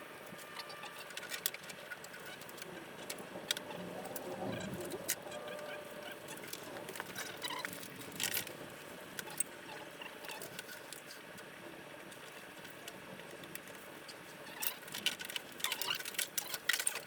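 Quiet scattered small clicks and taps of hands handling parts, with a denser run of clicks near the end.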